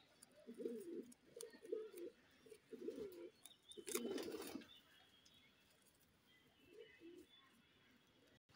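Domestic pigeons cooing: a run of low coos over the first half that fades out, with one faint coo near the end. A brief scratchy noise comes about four seconds in.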